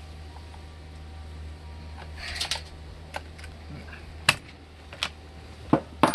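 Metal clicks and clacks from hands fitting a new chain onto the bar of a Salem Master 6220G chainsaw and handling a scrench. A soft rattle comes about two seconds in, then a few sharp separate knocks, the loudest at the very end.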